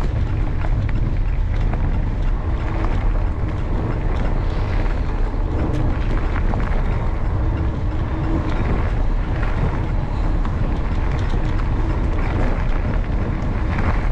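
Steady wind rumble on the microphone of a bike-mounted action camera, with mountain bike tyres rolling along a path and scattered small clicks and rattles.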